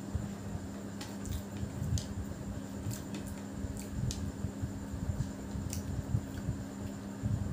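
Close-miked eating by hand: wet squishy chewing of biryani rice, with scattered small clicks as fingers mix rice on the plate. A steady low hum runs underneath.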